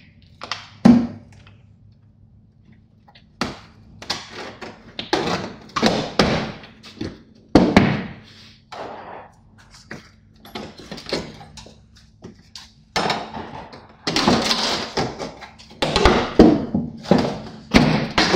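Aluminum travel-trailer siding panel being worked loose and pulled off the wall by hand: irregular rattles, bends and thunks of the thin sheet metal, with a sharp knock about a second in and the busiest, loudest stretch over the last few seconds.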